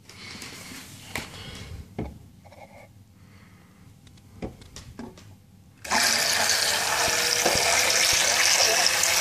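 A few light knocks as the toy boat is handled. About six seconds in, the homemade wooden toy boat's small DC motor starts and its propeller churns the sink water, a sudden loud, steady splashing with a faint even hum under it.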